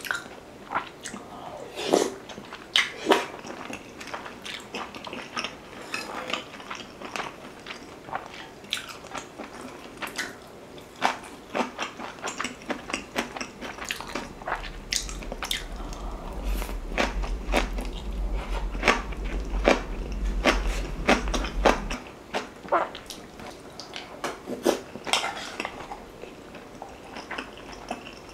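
Close-miked eating of beef-rib soup, glass noodles and green onion kimchi: chewing and biting with many short wet mouth clicks. A low hum comes in about halfway through and lasts several seconds.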